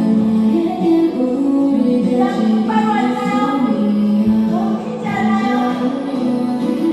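Music with a woman singing a slow melody over instrumental accompaniment.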